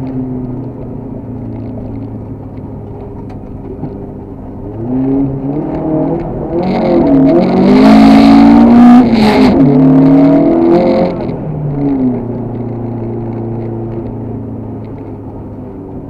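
Škoda 130 LR rally car's rear-mounted four-cylinder engine heard from inside the cabin, running at moderate revs, then revving hard for several seconds around the middle with the pitch rising and dropping, before settling back to a steadier, lower note.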